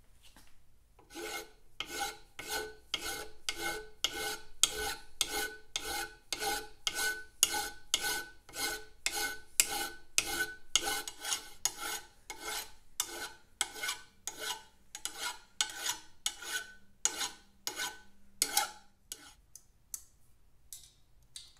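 Flat hand file rasping back and forth across a metal motorcycle prop-stand leg held in a bench vise, in steady strokes about two a second. The strokes start about a second in and stop near the end, with a few last strokes after. The leg's shoulder is being filed down so that the stand clears its bracket instead of catching on it.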